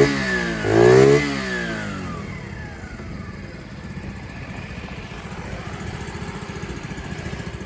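Gilera VC 70 Dax-type minibike's 70 cc single-cylinder engine being blipped: the revs fall away at the start, rise and drop again in one short blip about a second in, then settle to a steady idle.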